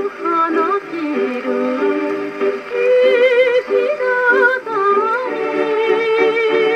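Acoustic portable Victor Victrola (VV 2-55) playing a 1949 78 rpm shellac record: a Japanese popular song, a woman singing with vibrato over instrumental accompaniment. The sound comes straight from the soundbox, thin and boxy, with no deep bass.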